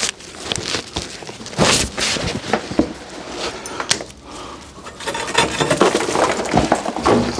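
Irregular knocks, clinks and scrapes of hand work beneath a traction engine, with one loud knock a little under two seconds in and a busier run of clatter through the second half.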